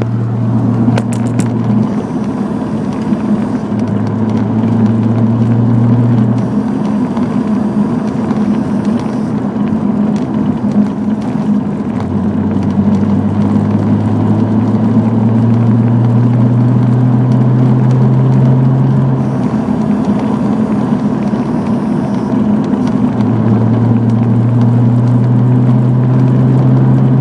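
Nissan 300ZX making a low, steady buzzing drone. A deeper tone under it cuts in and out several times, for a few seconds at a time.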